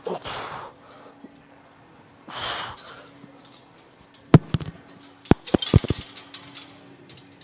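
Two hard exhalations close to the microphone from a lifter straining through a heavy set. A few seconds later comes a quick run of sharp clanks from gym weights, the first one the loudest.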